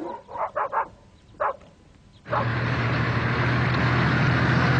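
Engine noise cuts in abruptly about halfway through: a steady drone with a constant low hum and a noisy wash above it, which continues unchanged. It is preceded by a few short, separate sounds in the first second and a half.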